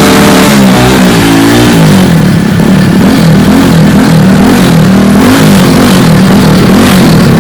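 Royal Enfield Bullet's single-cylinder engine being revved with repeated throttle blips, its pitch rising and falling over and over.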